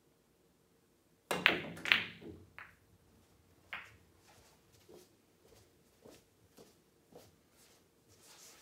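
Pool shot: the cue tip strikes the cue ball about a second in, followed by two sharp ball-on-ball clacks and a few lighter knocks as the balls hit the cushions and each other. Faint scattered knocks follow as the balls roll to a stop.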